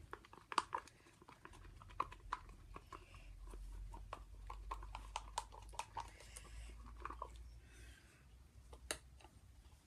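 Faint, scattered light clicks and taps of plastic mixing cups and stirring sticks being handled, over a low steady hum.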